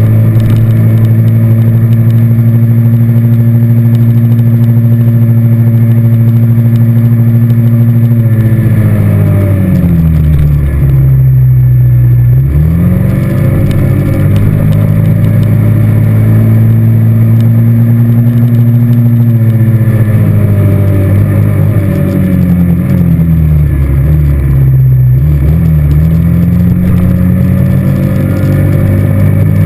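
ATV engine running loud while riding, its pitch steady, then falling as the machine slows and rising again as it speeds back up, twice over.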